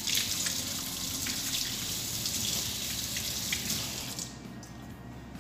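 Hot water running from a tap into a stainless steel sink, a steady splashing flow that shuts off about four seconds in.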